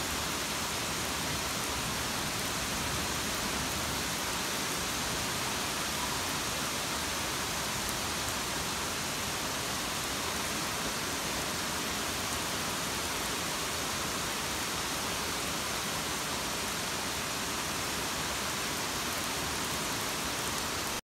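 Heavy rain pouring down in a steady, dense hiss that stays even throughout.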